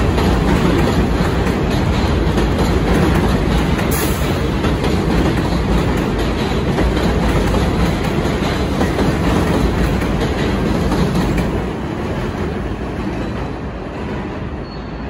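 R68 subway train rolling past on an elevated steel structure: a loud, steady rumble with wheel clatter. It fades after about twelve seconds as the train moves off.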